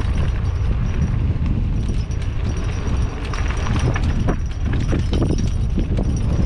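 A mountain bike rattling and knocking over a rough dirt trail on a descent, with uneven clatter throughout. Wind rumbles heavily on the microphone under it.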